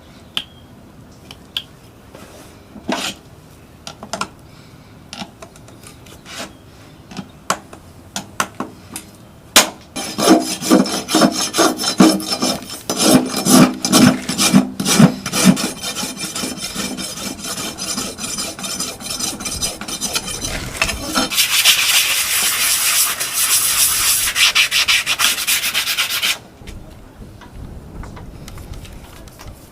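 Farrier's rasp filing a horse's hoof: light scattered taps at first, then about ten seconds in a run of fast, regular rasping strokes, turning near the end into a louder, steadier, higher scraping that stops suddenly.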